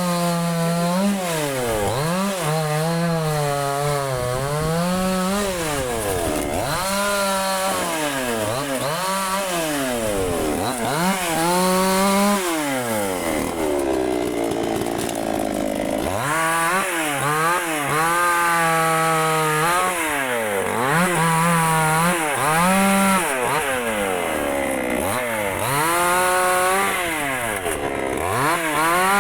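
Dnipro-M two-stroke petrol chainsaw cutting walnut wood, its engine pitch dipping and climbing again and again as it revs and bogs under load. Around the middle it runs lower and softer for a few seconds before revving up again.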